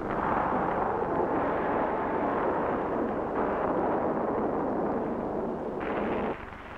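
Steady roar of a large fire burning, changing abruptly in tone about three and a half and six seconds in and dropping away just before the end.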